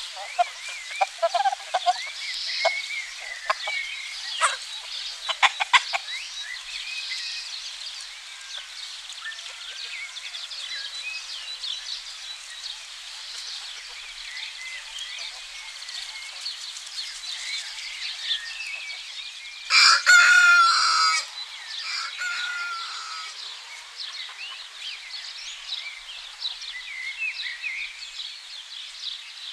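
Chickens clucking in short bursts during the first few seconds, then a rooster crowing once about two-thirds of the way through, the loudest sound. Small birds chirp throughout.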